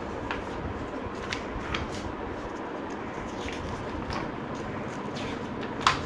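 Pages of a large hardcover book being turned by hand: several short paper flicks and rustles, the loudest one near the end, over a steady background hiss.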